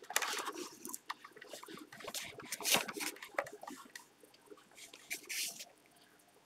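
Duster wiping across a whiteboard in repeated uneven strokes, stopping about five and a half seconds in.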